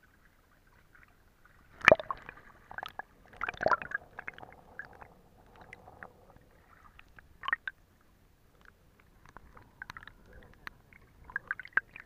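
Shallow stream water gurgling and sloshing around a camera dipped into it, with two louder splashy bursts about two and three and a half seconds in. After that come scattered bubbling clicks and gurgles from under the water.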